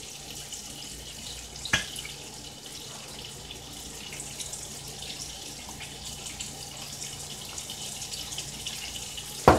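Steady sizzling of fries and fish frying in oil in a pan, with a sharp click about two seconds in and another near the end.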